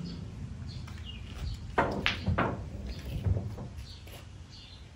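A pool cue strikes the cue ball with a sharp click a little under two seconds in, followed by a few more clicks as the billiard balls knock into each other and the table over the next second and a half.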